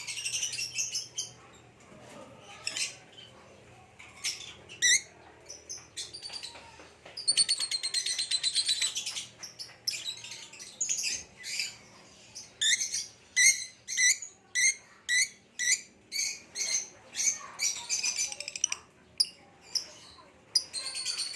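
Lovebirds, a green Fischer's lovebird and a parblue, chirping and chattering. Sharp high chirps give way to a fast rattling trill about a third of the way in, then a run of shrill chirps about two a second, and another trill near the end.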